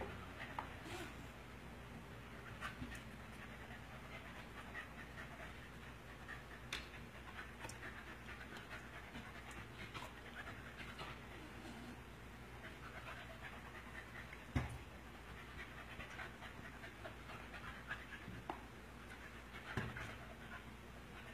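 Dog panting as it play-fights with a Siamese kitten, with scattered light taps and scuffles of paws on a tile floor and one sharper knock about two-thirds of the way in.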